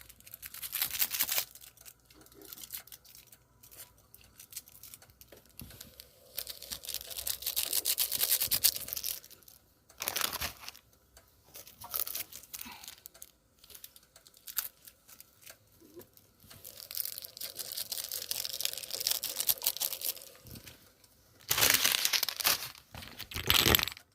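Rustling and crinkling in several separate bursts, each lasting one to three seconds, with quieter gaps between them.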